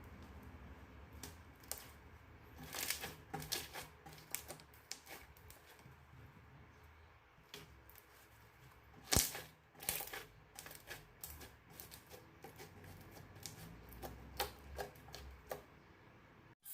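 Slime being squeezed and poked by hand: faint, irregular sticky clicks and small crackles. A sharper click comes about nine seconds in.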